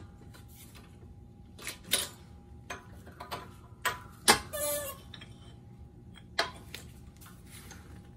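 A few separate sharp metal clicks and taps from a hydraulic shop press and the parts on it as a speedo ring gear is slowly pressed onto a Honda K-series differential and realigned. The loudest click comes about halfway through.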